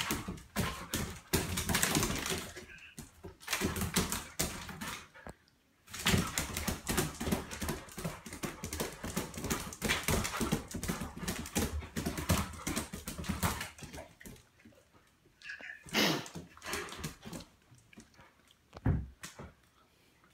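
A dog's claws rapidly clicking and scrabbling on a tile floor as it spins in circles, with a brief pause about five seconds in. The clicking thins to scattered taps in the last several seconds as the dog slows and stands.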